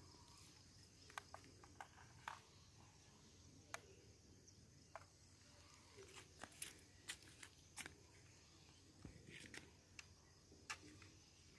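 Near silence: faint outdoor background with a few scattered faint clicks and ticks.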